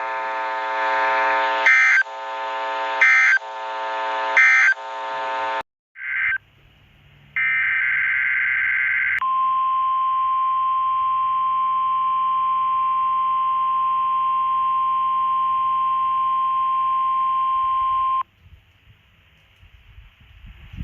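NOAA Weather Radio test signal. First come three buzzy digital SAME header bursts, each ending in a short screech, then a couple of brief bursts. After that a single steady 1050 Hz warning alarm tone holds for about nine seconds and cuts off sharply, leaving faint radio static.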